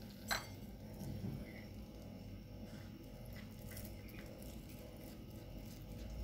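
A single light clink of a glass dish on a tiled floor about a third of a second in, then a few faint small clicks as a cat eats and licks food from a hand.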